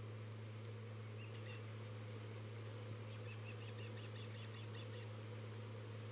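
Osprey chirping: a few short high-pitched chirps about a second in, then a quick run of about eight more, roughly five a second, near the middle. A steady low electrical hum runs underneath.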